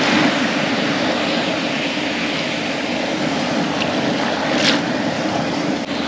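Steady rush of surf washing and breaking around the shallows, with a short faint hiss about four and a half seconds in.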